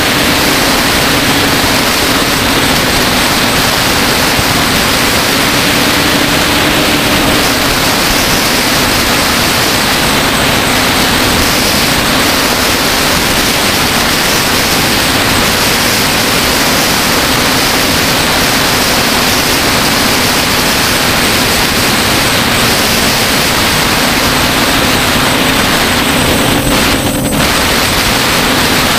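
DJI Flamewheel F550 hexacopter's six electric motors and propellers running steadily in flight, heard from its onboard camera: a loud, even rush with a low hum that wavers slightly in pitch. The level dips briefly once near the end.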